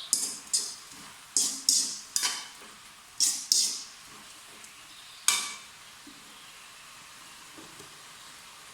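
A spatula stirring and tossing food as it fries in a hot pan, each stroke bringing a quick burst of scraping and sizzle. There are about eight strokes in the first five seconds or so, the last one alone, then only a faint steady background.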